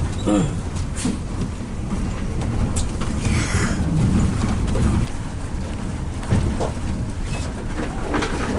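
Intercity coach bus on the move: a steady low engine and road rumble, with a few short knocks and rattles.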